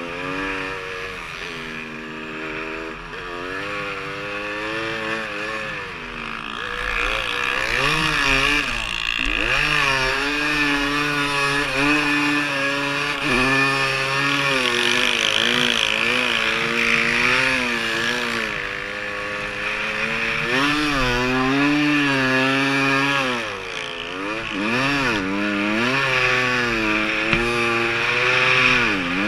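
Snow bike engine running hard through deep powder, its pitch rising and falling over and over as the throttle is opened and eased.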